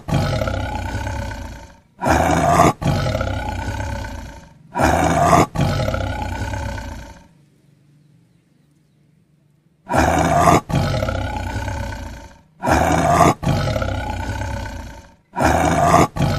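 A lion roar sound effect played over and over, each roar about two and a half seconds long with a short break after its opening part. The roars come in two runs of three, with a pause of a couple of seconds about halfway through.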